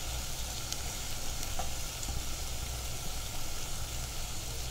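Chopped onions frying in hot oil in a non-stick pan, sizzling steadily as chopped tomatoes and green chillies are scraped in from a steel bowl with a spatula, with a couple of faint taps.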